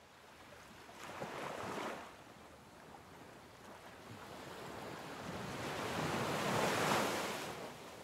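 Sea waves washing: a short surge about a second in, then a longer one that builds to its peak near the end before falling away.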